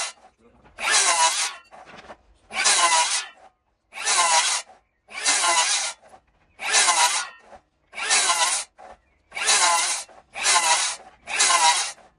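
Handsaw making cross cuts in a green oak timber: about ten long, even saw strokes, roughly one a second, each a rasping hiss with a short pause between, coming slightly quicker near the end.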